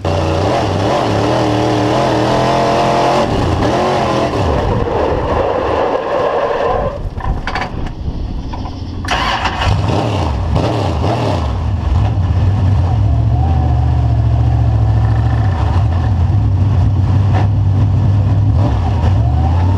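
Dirt late model's 602 crate V8 at speed, heard from inside the cockpit: the engine climbs in pitch as the car accelerates, eases off for a couple of seconds about seven seconds in, then comes back on the throttle and pulls loud and steady.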